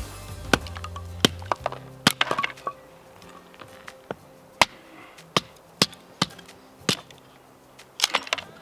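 Campfire crackling: sharp wood pops and cracks at irregular intervals, some in quick little clusters, over quiet background music.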